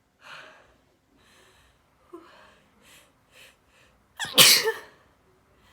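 A person's sneeze: a few short, hitching breaths building up, then one loud sneeze a little over four seconds in.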